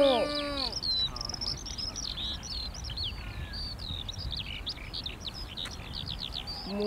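Songbirds chirping and warbling in a rapid, continuous stream over a low wind rumble. A held pitched tone glides down and stops in the first half-second, and a similar tone slides back up just at the end.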